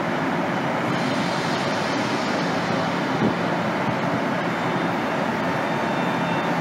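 Steady hum and hiss of a CRH380CL high-speed train standing still, with faint steady tones running through it. A short knock comes about three seconds in.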